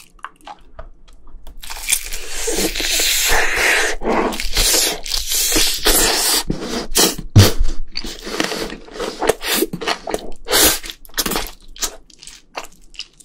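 Close-miked biting and chewing of a fried chicken drumstick with a crispy seasoned coating, dipped in a creamy sauce. It starts faint, then turns into dense, sharp crunching about two seconds in, dying down near the end.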